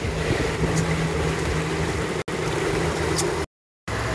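Motorboat engine running steadily under way at low speed, with water and wind noise, and a short gap in the sound near the end.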